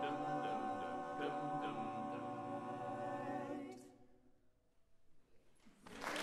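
Men's a cappella choir holding the song's closing chord, which cuts off about three and a half seconds in. After a couple of seconds of near silence, applause breaks out at the very end.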